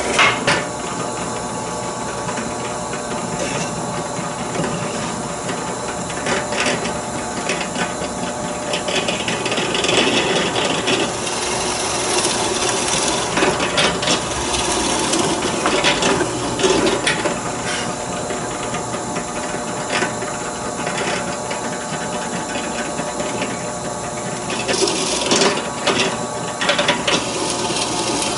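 Drill press running while its bit bores holes into a hardwood tiller blank to cut out a sheave slot. The rasping cut into the wood grows louder and fades again as the bit is plunged and raised, over the steady hum of the motor.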